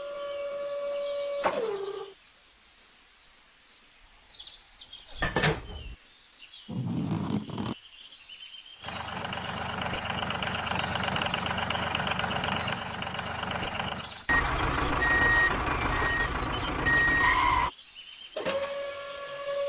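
Vehicle-like machine noise that starts and stops in abrupt segments, with a run of evenly spaced high beeps like a reversing alarm about two-thirds of the way through. A steady tone at the start ends in a falling slide and returns near the end.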